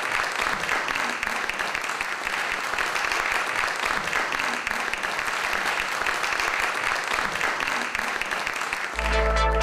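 A crowd applauding steadily. Near the end, electronic music cuts in abruptly.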